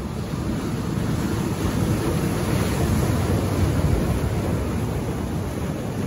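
Ocean surf crashing and washing through shoreline rocks: a steady rush of breaking water that swells to a peak mid-way and then eases back.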